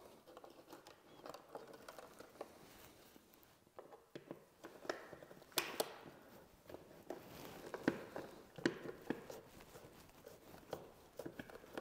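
Faint scraping and small clicks of a bare copper ground wire being bent and wrapped around the ground screw in an electrical box, with a few sharper ticks scattered through.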